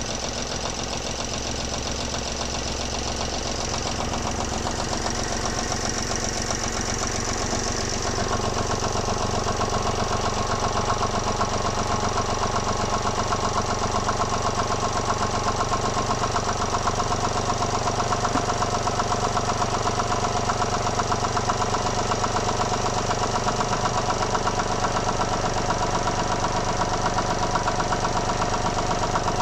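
Volvo D17C three-cylinder diesel engine running at a steady idle with an even diesel clatter, just after its broken valve spring was replaced with the cylinder head left on. It comes in abruptly and picks up slightly about eight seconds in.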